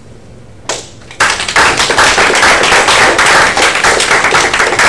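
A small audience applauding: a single clap, then from about a second in dense, loud clapping that starts to thin out into separate claps near the end.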